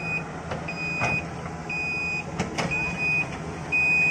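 Heavy vehicle's reversing alarm beeping, one high half-second beep about once a second, over the steady running of heavy diesel machinery. A sharp clank about two and a half seconds in.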